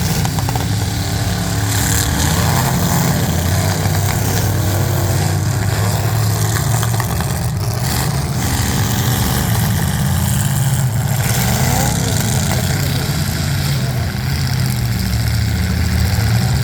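Engines of several full-size demolition derby cars running and revving up and down, with a few impacts of cars hitting each other.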